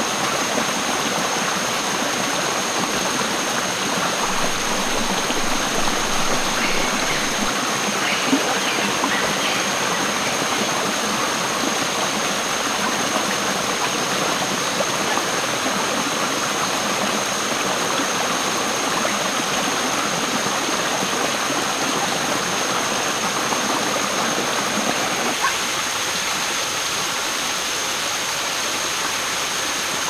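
Small rocky stream cascading over boulders: a steady rush and babble of flowing water.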